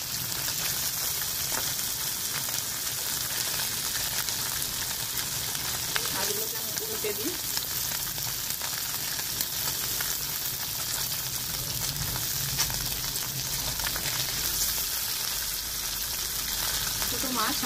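Small mourola fish sizzling steadily as they shallow-fry in hot oil in a steel kadai, with a few light clicks of a metal spatula turning them.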